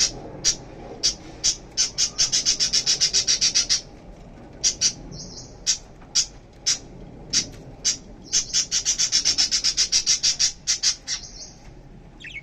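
Lovebirds calling with sharp, high-pitched chirps, singly about twice a second, breaking twice into fast runs of rapid chirps lasting a few seconds each.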